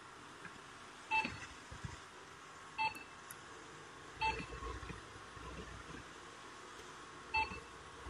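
Sharp Crown BL600 robot vacuum's control panel beeping four times, a short pitched beep for each button press, acknowledging the presses while its clock's minutes are set.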